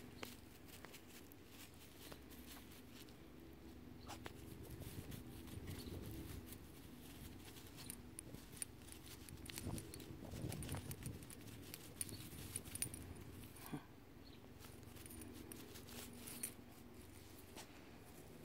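Faint rustling of dry grass and scattered small clicks as a cat noses about hunting a lizard, with the metal ring and tag on her harness jingling now and then.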